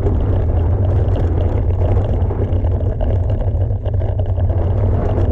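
Wind rumbling on the microphone together with mountain bike tyres rolling on a dirt trail during a downhill ride: a loud, steady low rumble.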